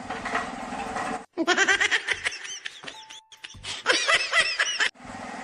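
Bursts of laughter in short spliced clips, broken by abrupt cuts about a second in and near the end.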